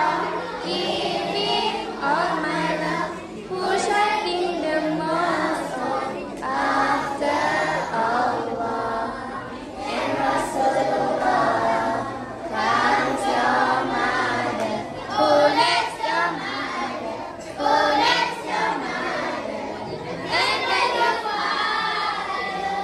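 A children's choir of boys and girls singing together.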